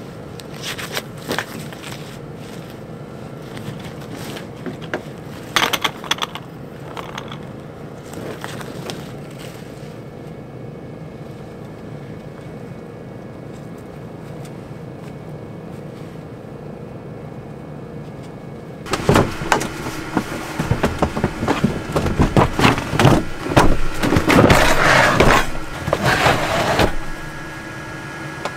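Gear being handled: scattered scrapes and knocks, then a stretch of quiet steady hum, then about eight seconds of loud, dense clattering and knocking as a DeWalt hard plastic tool case is moved about.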